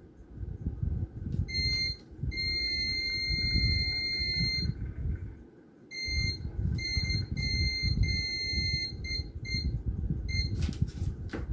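A multimeter's continuity beeper sounding in irregular on-off stretches, some brief and one about two seconds long, as a switch is tested. Low rumbling handling noise runs underneath.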